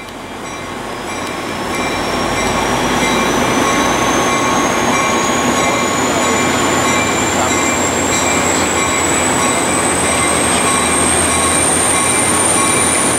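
Coaster commuter train pulling out of the station: its rumble builds over the first couple of seconds and then holds steady, with a thin high whine rising slowly in pitch as it gathers speed.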